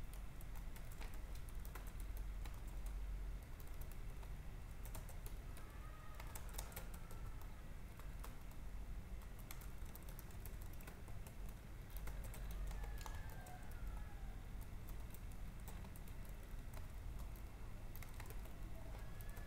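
Computer keyboard typing: irregular key clicks over a low steady hum.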